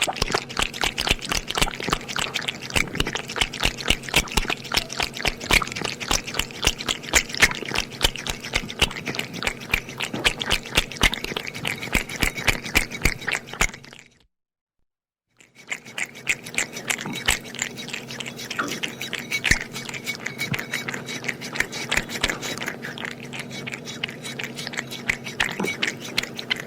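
A cat lapping up milk: a quick, continuous run of small wet laps and clicks from its tongue. The lapping stops about 14 seconds in and starts again about a second and a half later.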